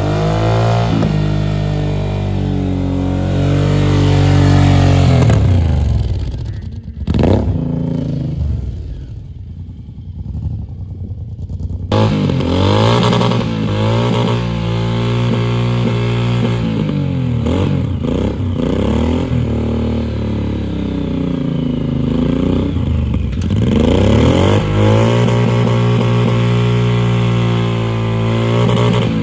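A vehicle engine revving up and down over and over, its pitch climbing and dropping through many cycles, with a quieter stretch about a quarter of the way in.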